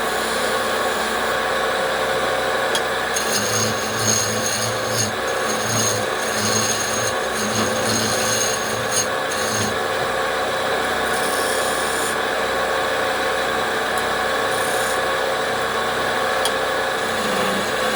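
Wood lathe running steadily while a turning tool works the spinning wood, giving a rasping, scraping sound. The scraping is strongest from about three to ten seconds in.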